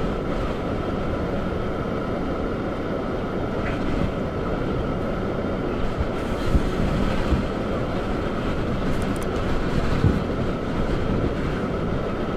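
Steady rumble of strong storm wind buffeting the microphone, with a few soft thumps.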